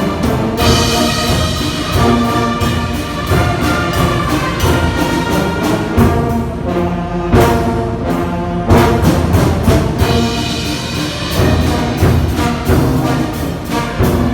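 Church brass band playing a full, loud arrangement, with drums keeping a steady beat. A little past the middle the upper parts drop out for about two seconds before the full band comes back in.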